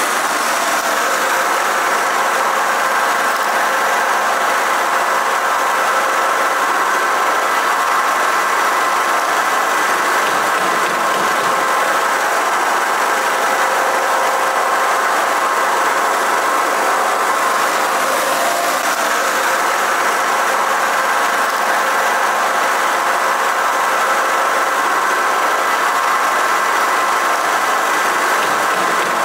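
Puffed-snack production line machinery running: a steady mechanical drone and hiss with several steady high whines.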